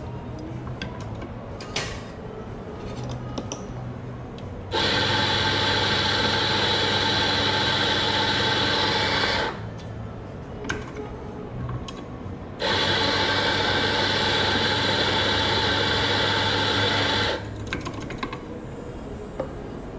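Electric coffee grinder running twice, each run a steady motor-and-burr whine of about five seconds, beginning about five seconds in and again a little before the end. Small clicks and knocks of handling come between the runs.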